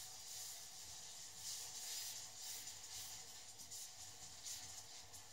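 Hot caramelized sugar hissing and bubbling in a saucepan with fresh cream added, stirred with a wooden spoon; the hiss swells and dips unevenly.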